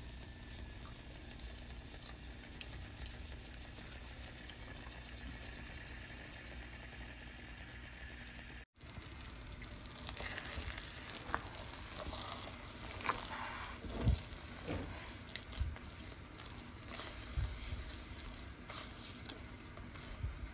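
A thick biko mixture of glutinous rice in coconut milk and brown sugar bubbles and sizzles softly in an aluminium pot over a steady low hum. After a brief cut about nine seconds in, a wooden spatula stirs and scrapes through the sticky rice, with irregular knocks and scrapes against the pot.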